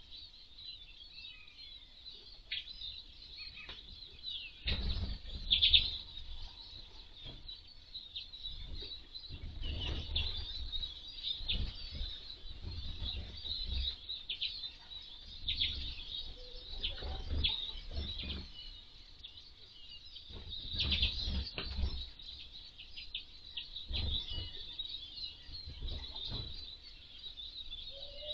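Small finches, Eurasian siskins and common redpolls, twittering continuously at a feeder. Dull low thumps and rumbles come and go among the calls, loudest about five seconds in and again past the twenty-second mark.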